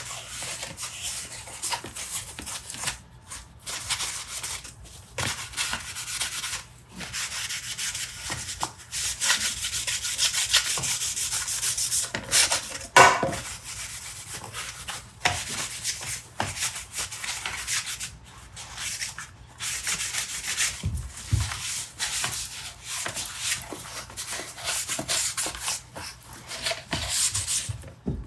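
Sandpaper rubbing over wood by hand in quick, irregular back-and-forth strokes, with one louder stroke about halfway through.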